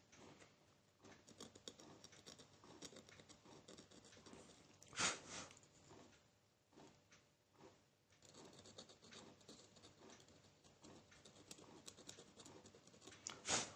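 Faint scratching and small clicks of metal tweezers working on an LED bulb's aluminium LED board and housing, with two louder knocks, one about five seconds in and one near the end.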